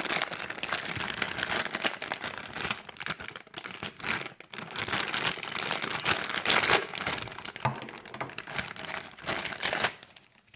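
Plastic packaging crinkling and rustling with many small clicks as toy pieces are handled and unwrapped, easing off near the end.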